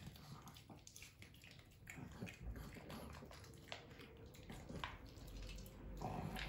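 A pug and a Pekingese eating dry kibble from their bowls: faint, scattered crunching and clicking of kibble against teeth and bowls.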